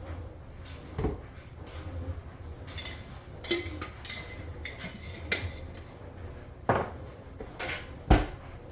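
Hard objects being handled, knocking and clinking against each other in a string of separate knocks, some with a short metallic ring; the loudest knock comes near the end.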